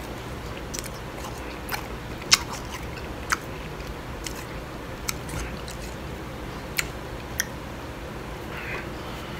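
Chewing a mouthful of blended ice, with about seven sharp crunches at irregular intervals, the loudest a little over two seconds in.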